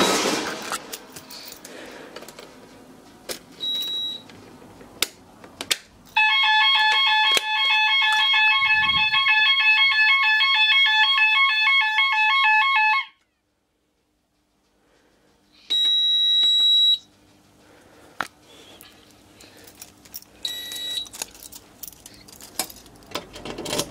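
Fire alarm sounder going off in alarm with a fast two-tone warble for about seven seconds, then cutting off abruptly as the system is silenced. Afterwards the fire panel's internal buzzer sounds a steady high beep for about a second, with a few short beeps and handling clicks around it.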